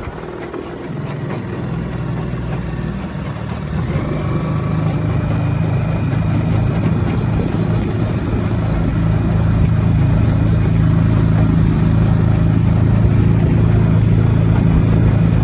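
Suzuki DF6A 6 hp single-cylinder four-stroke outboard motor running, getting louder over the first four seconds as it picks up speed, then holding a steady note. It runs smoothly off an external fuel tank, pulling fuel without faltering.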